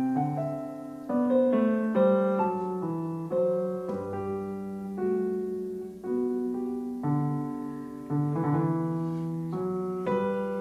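Piano music: slow chords struck about once a second, each left to ring and fade before the next.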